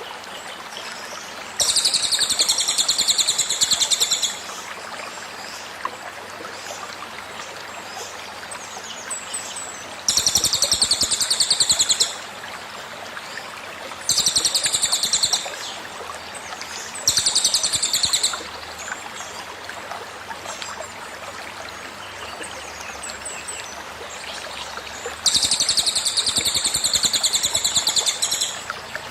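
A cililin songbird's 'tembakan' song: five bursts of very rapid, high-pitched repeated notes, each one to three seconds long, over the steady sound of a flowing stream.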